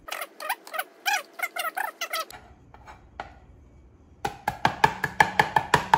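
A run of short, high-pitched squeaky chirps, then from about four seconds in a chef's knife chopping an onion on a plastic cutting board: sharp, even knocks about four a second.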